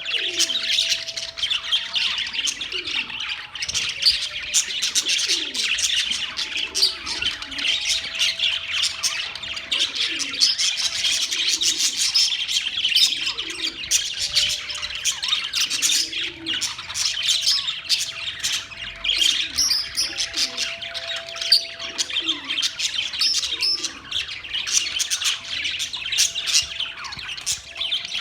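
A flock of budgerigars chattering and chirping without pause: a dense mass of rapid, high warbling calls.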